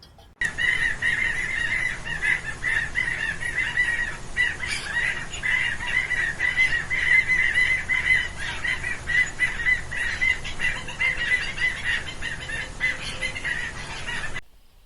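A flock of birds calling continuously, many short overlapping calls. The sound starts suddenly about half a second in and cuts off abruptly near the end.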